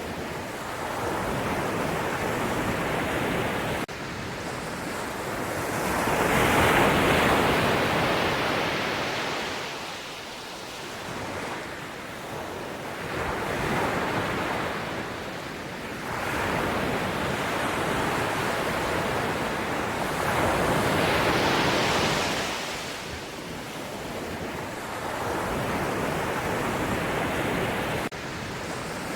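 Ocean waves breaking and washing up the shore, the surf swelling and ebbing in slow surges several seconds apart.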